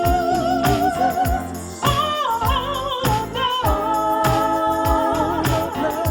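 Church music: a sung melody holding long notes with vibrato over a steady, evenly spaced beat with jingling percussion.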